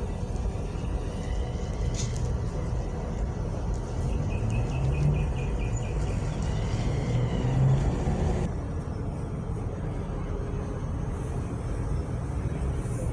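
Steady low rumble of road vehicles running, with a brief run of rapid faint high chirps about four seconds in.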